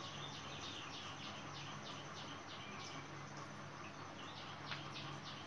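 A bird chirping faintly in a quick, even series of short calls, about three a second, with a short pause a little past the middle. A low steady hum sits underneath, and there is one light knock near the end.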